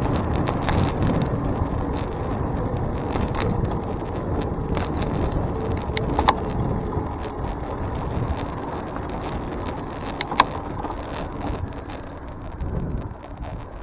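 Steady rumbling road and wind noise from a moving bicycle, with two sharp clicks, one about six seconds in and one about ten seconds in.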